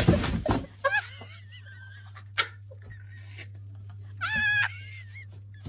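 Wavering, animal-like cries over a steady low hum: a faint one about a second in and a louder one about four and a half seconds in.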